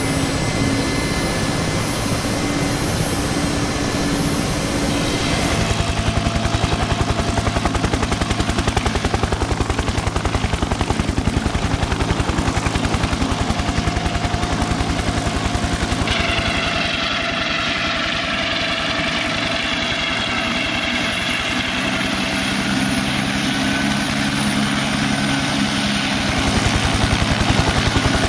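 Helicopter in flight: a fast, even rotor beat over a steady engine whine. The sound shifts a little about five seconds in and again past the middle, and grows louder near the end as the helicopter comes down to land.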